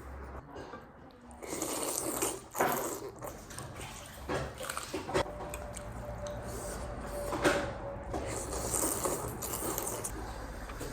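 Someone eating a bowl of thukpa (noodle soup): wet slurping and chewing, with several short sharp clicks or knocks at irregular gaps.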